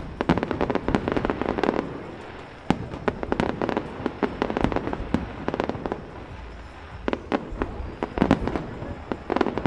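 Aerial fireworks display: shells bursting in quick succession with crackling reports, coming in clusters with short lulls and densest near the end.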